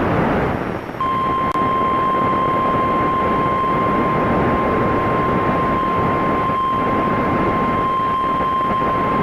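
NOAA Weather Radio 1050 Hz warning alarm tone: a single steady, unbroken tone that starts about a second in and holds over a background of radio static hiss. It is the attention signal that precedes a warning broadcast, here a severe thunderstorm warning.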